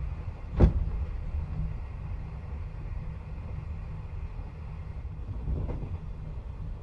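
Inside a 24-series sleeping car running on the line: a steady low rumble of the moving train, with one sharp knock about half a second in and a softer one near the end.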